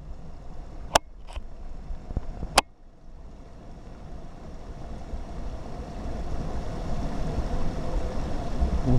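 A few sharp clicks in the first few seconds, then an abrupt change to a motorcycle engine running with splashing creek water, growing steadily louder.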